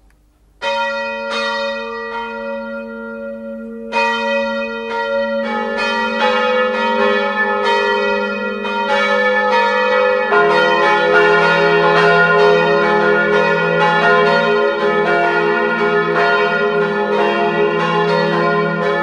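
Church tower bells ringing: one bell starts about a second in, a second joins after about four seconds, and more join in turn until a full peal rings from about halfway.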